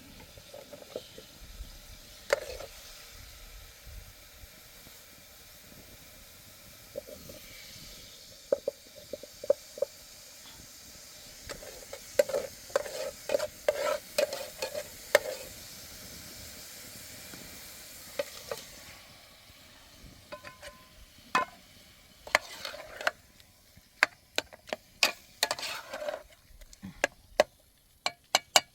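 Food sizzling in a pan while a utensil stirs and scrapes against it. The sizzling dies away about two-thirds of the way through, leaving scattered knocks and scrapes of the utensil.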